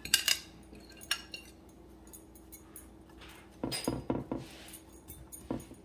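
A metal fork tapping and scraping against a glass bowl and a glass baking dish: a few sharp clinks in the first second, then a burst of scrapes and clinks about four seconds in, and one more near the end.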